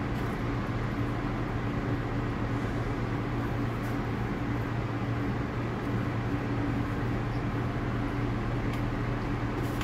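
R62A subway car standing at the platform, its on-board air-conditioning and auxiliary equipment giving a steady, even hum with a few fixed low tones.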